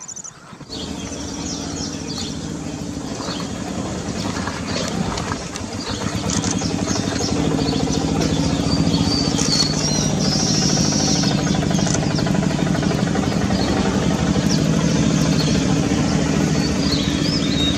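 An engine running steadily. It starts abruptly about a second in and grows louder after about six seconds, with short high bird chirps over it.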